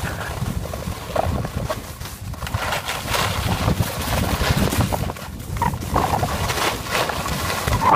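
Skis scraping and chattering over icy snow on a downhill run, with wind buffeting the phone's microphone as a steady low rumble.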